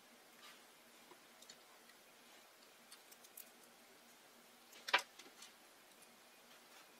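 Faint scattered clicks and small handling taps, with one sharper click about five seconds in: small parts and tools being handled at a workbench.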